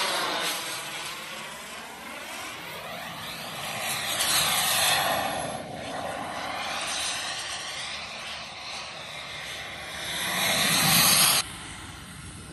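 Turbine-powered RC model jet flying past overhead, a rushing jet noise that swells to two loud passes, about four seconds in and again near the end, then cuts off suddenly.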